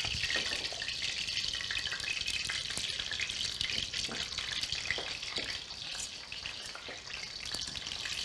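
Zucchini slices frying in hot oil in a stainless steel skillet: a steady sizzle as the slices are laid in and turned with tongs.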